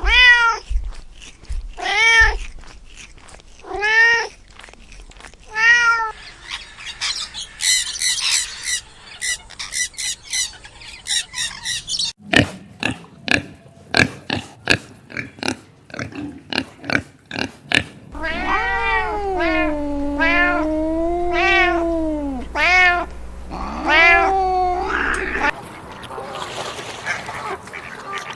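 Cat meowing: four short meows about two seconds apart, then high chirping and a quick run of clicks, then a run of longer, drawn-out meows that rise and fall.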